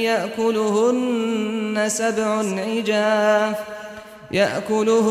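A man reciting the Quran in melodic tajweed style, holding and ornamenting a long drawn-out vowel. The voice dips briefly for a breath about four seconds in, then resumes.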